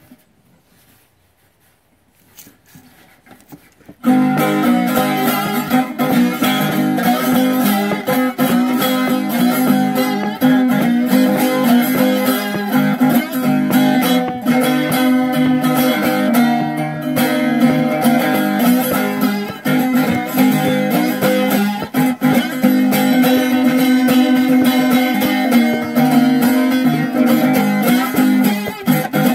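Gas-can guitar played with a spoon slide, a continuous slide-and-strum riff with a steady low drone. It starts about four seconds in, after a few faint handling clicks.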